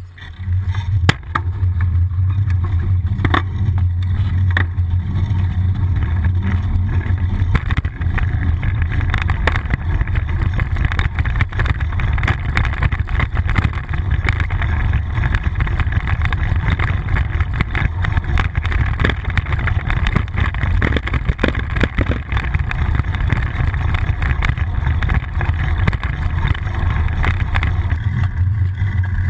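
Wind buffeting and road vibration on a bicycle-mounted GoPro camera as the bike rides along: a loud, steady low rumble with scattered knocks and rattles from bumps in the road. It sets in abruptly right at the start.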